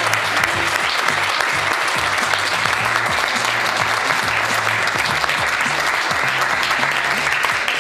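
Room full of journalists applauding steadily, with music playing underneath.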